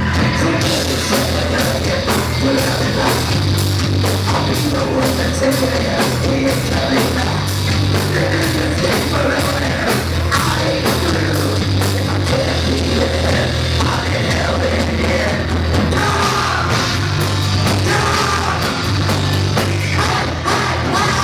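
Live rock band playing loud heavy rock: a steady drumbeat with cymbals under a singer's voice.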